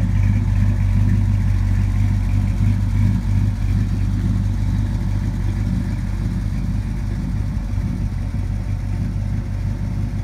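GM 350 small-block V8 in a 1948 Ford F1 restomod running at a steady idle, getting a little quieter in the second half.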